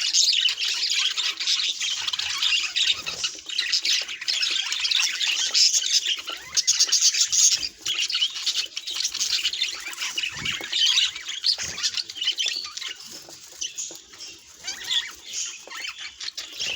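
Budgerigars chattering: a dense, continuous run of high-pitched warbles and chirps, a little quieter over the last few seconds.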